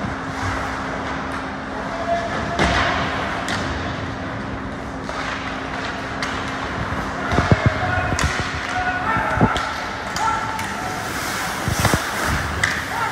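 Game play on an indoor court: a ball bouncing and scattered thumps, with short squeaks and players' calls, over a steady hum.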